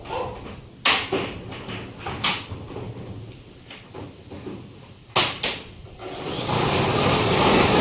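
Knocks and rattles from a corrugated sheet roof being worked on: a few single sharp knocks, two close together about five seconds in, then a rising rough scraping noise near the end.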